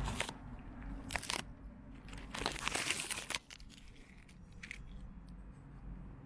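Crackling, rustling noise right at the microphone in a few irregular bursts, the longest about a second long in the middle, over a faint low hum.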